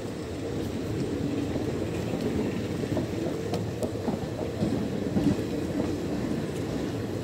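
Passenger train coaches rolling past alongside the platform, a steady low rumble with a few faint clicks from the wheels.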